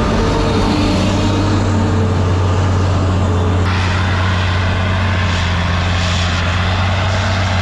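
Heavy diesel engine of harvest machinery running at a steady speed, a deep even drone, with a rise in rushing hiss about three and a half seconds in.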